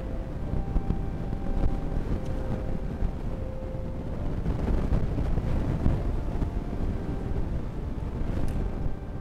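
Steady low rumbling noise, with faint held tones that shift in pitch every second or so.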